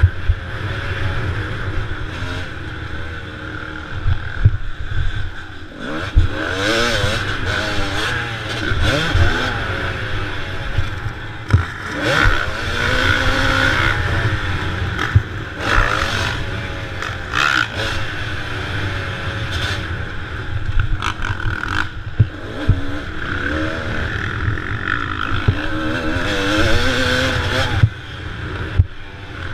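Dirt bike engine being ridden hard, revving up and dropping back over and over as the throttle opens and closes. Sharp knocks and clatter now and then from the bike over the rough track.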